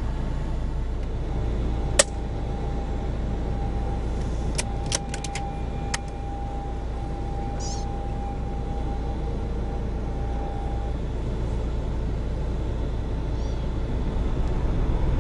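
Steady low rumble of wind on the microphone. A single sharp click comes about two seconds in, a few fainter clicks follow a few seconds later, and there is a short high chirp near the middle.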